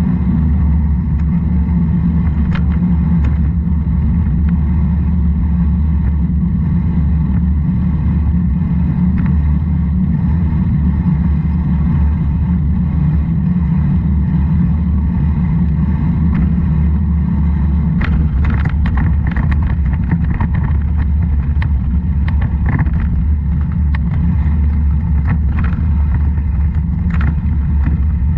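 Steady low rumble of a vehicle riding down a wet road, heard on a mounted action camera's microphone. A run of short sharp clicks and rattles comes in over the second half.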